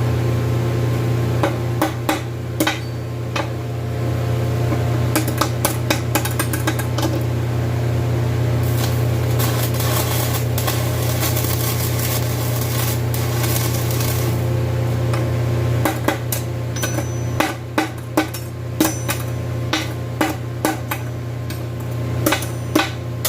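Irregular hammer strikes on metal over a steady low hum.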